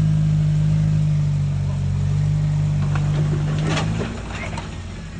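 Off-road vehicle's engine running loud at steady revs under load, then dropping back about four seconds in, with a few brief rattling noises around the drop.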